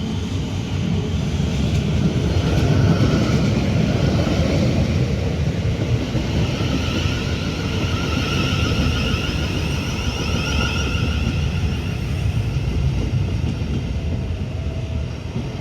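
Electric multiple-unit train, a Class 377 Electrostar, running past with a continuous heavy rumble. A wavering, high whine rises over it in the middle and then fades.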